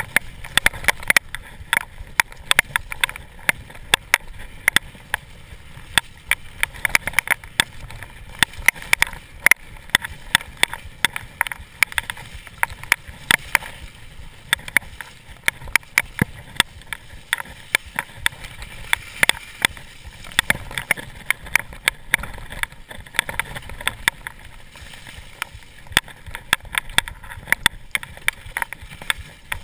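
Mountain bike rattling over a rough, muddy trail: an irregular, rapid run of sharp knocks and clatters from the bike, over a low rumble of the tyres on the ground.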